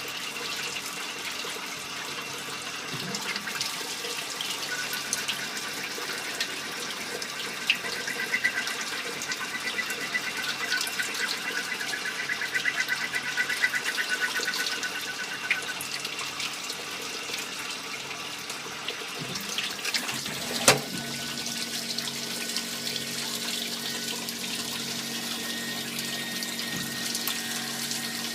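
Multi-function automatic lathe running while machining small-diameter parts, with cutting fluid splashing. Midway there is a rapid pulsing whir, about two-thirds through there is one sharp clack, and after it a steady low hum sets in.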